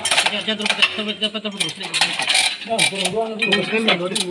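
Metal hand tools and chain links clinking and clattering against a truck gearbox as it is worked on by hand, a quick run of sharp metallic clinks over a voice in the background.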